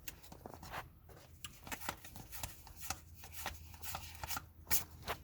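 Basketball trading cards being flipped through by hand: an irregular run of quick card-on-card slides and snaps, several a second.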